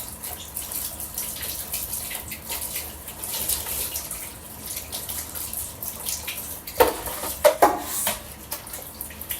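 Water running from a tap into a sink while something is rinsed out, with two or three sharp knocks a little past the middle.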